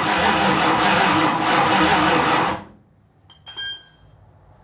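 Starter cranking the Chrysler 360 V8 without it catching: the engine is not firing because the ignition key switch is not making contact. The cranking stops about two and a half seconds in, followed by a short metallic clink that rings briefly.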